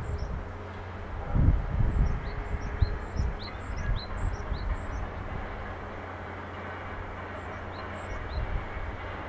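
Outdoor ambience of small birds calling in runs of short, high chirps, a few a second, mostly in the first half and again briefly near the end. Under them are a steady low hum and low rumbles of wind on the microphone, the loudest about one and a half seconds in.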